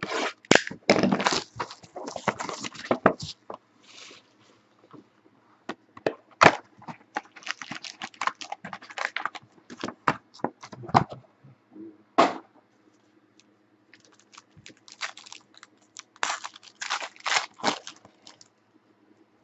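Plastic wrap and foil packs of a trading-card box being cut, torn and handled: several runs of crinkling and crackling with quiet gaps between, and a single sharp snap partway through.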